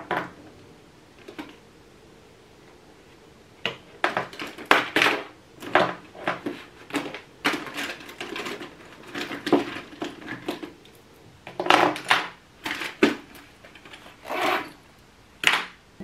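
Pens and plastic highlighters clattering in a fabric pencil case as a hand rummages through it: a click at the start, then after a few quiet seconds a long run of short rattles and clicks.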